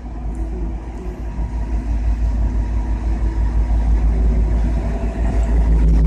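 V/Line N-class diesel-electric locomotive approaching slowly, its engine rumble growing steadily louder as it draws near.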